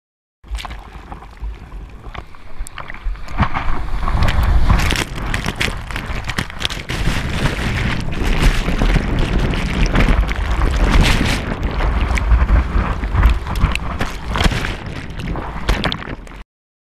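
Sea water sloshing and splashing right at a GoPro at the surface as a bodyboarder paddles out through choppy sea, with many sharp splashes over a heavy rumble of wind and water on the microphone. It starts about half a second in and cuts off suddenly near the end.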